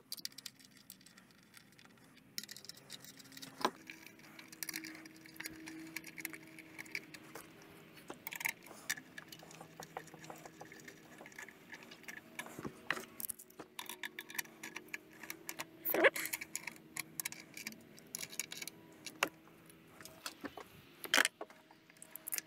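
Irregular light clicks and metal clinks of hand tools and parts being handled while ignition coil packs are fitted and bolted down.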